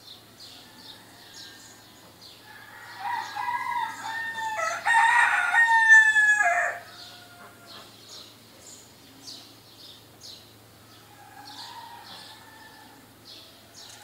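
A rooster crows once, loudly, for about four seconds in the middle. Small birds chirp in short high notes about twice a second throughout, and a fainter call comes near the end.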